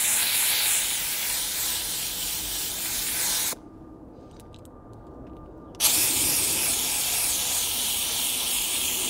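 Steam cleaner hissing as it jets steam onto a car window's tint film to soften the adhesive. The hiss cuts off about three and a half seconds in and starts again about two seconds later.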